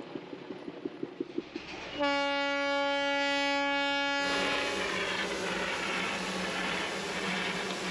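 Darjeeling toy-train steam locomotive sounding its whistle in one steady blast of about two seconds, after faint rapid ticking. The whistle then breaks off into a steady loud hiss of steam venting.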